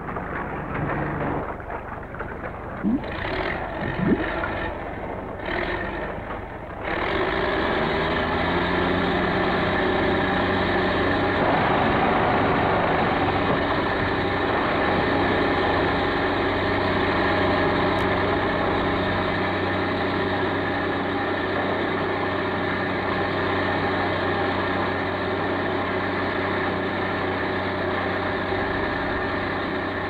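Crane engine working a clamshell bucket digging a slurry-wall trench. It runs with scattered knocks and clanks for the first few seconds, then settles from about seven seconds in to a steady, even engine sound.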